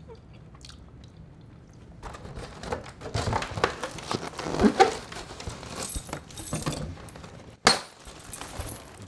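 Foil helium balloons crinkling and crackling as they are handled and squeezed while their necks are worked open, with one sharp, loud crack near the end.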